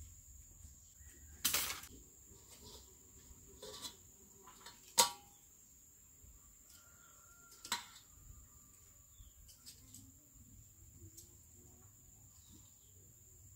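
Scattered metal clinks from steel kitchen tongs, a steel bowl and a wire grill rack as fish pieces are laid on the grill over a charcoal stove: four sharp knocks, the loudest a ringing clink about five seconds in. A steady high-pitched whine sits underneath.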